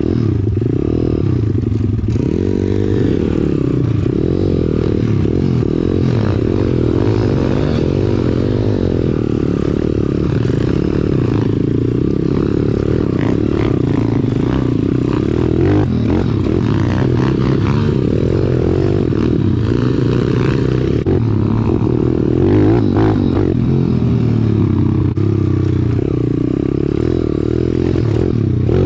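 Pit bike's single-cylinder four-stroke engine heard up close from on the bike, running under load with its pitch rising and falling as the throttle is worked. Knocks and rattles from the bike as it goes over a rough dirt trail.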